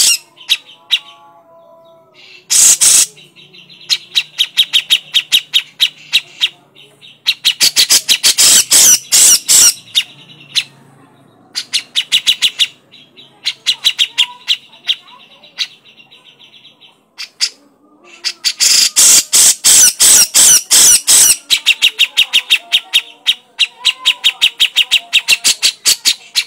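Grey-cheeked bulbul (cucak jenggot) giving its harsh, rapid chattering call (crecetan) in repeated bouts. Loud rattling runs of quick notes alternate with quieter, faster buzzy trills.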